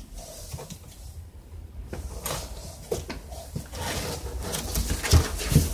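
Scattered light knocks and rustling, with two heavier thumps near the end.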